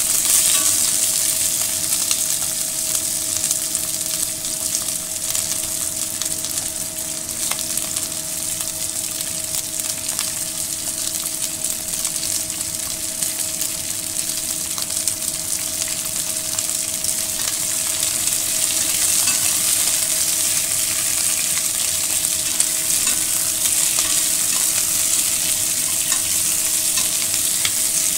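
Chopped onion and bell peppers sizzling steadily as they are sautéed in a pot, stirred with a wooden spatula that scrapes lightly now and then.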